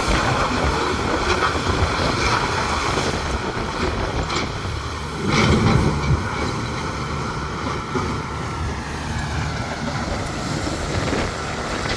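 Large excavator's diesel engine and hydraulics running under load, swelling louder for about a second midway, with a few short clanks. A faint whine slides slowly down in pitch near the end.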